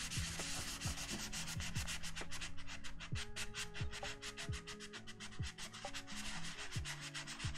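Paper towel with Brasso being rubbed hard over a sandblasted metal keyboard case in rapid, even back-and-forth strokes, polishing at a stain.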